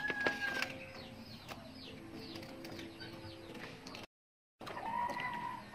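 Faint bird calls in a rural yard: a run of short high chirps early, then low drawn-out cooing calls through the middle. The sound drops out completely for a moment about four seconds in, then a couple of steady tones start near the end.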